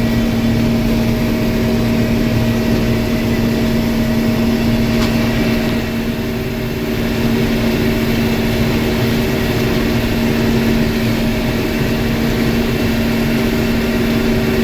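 Combine harvester running steadily while harvesting corn: a constant engine and threshing-machinery drone with a steady hum, dipping slightly in loudness about six seconds in.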